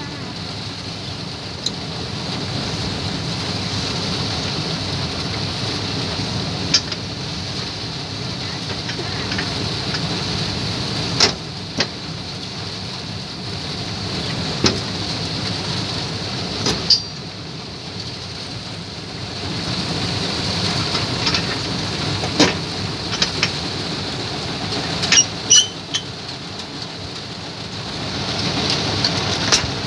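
Combine harvester running while cutting rice: a steady drone with a high hiss over it, swelling and fading as the machine works along the field. Sharp clicks or knocks come every few seconds.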